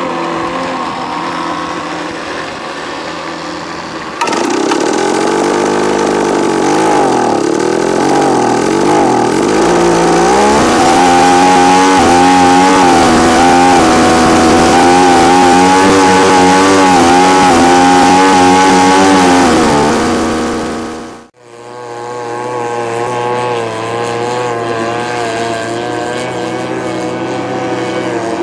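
A vintage 1926–27 mahogany speedboat's engine running under way, heard from on board with water and wind rush. About four seconds in it grows louder and its pitch swings up and down, then settles into a steady, higher-pitched run. Near twenty-one seconds the sound cuts off abruptly, and a speedboat engine is then heard running steadily from farther off.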